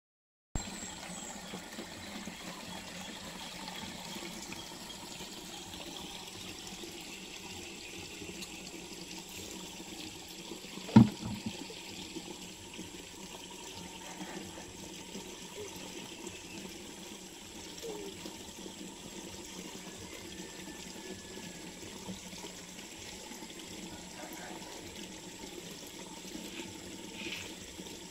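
Spring water running and trickling steadily among rocks. A single sharp thump about eleven seconds in is the loudest sound.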